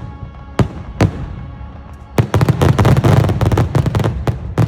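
Aerial fireworks bursting: two separate sharp booms in the first second or so, then a dense rapid barrage of reports and crackle from about halfway through.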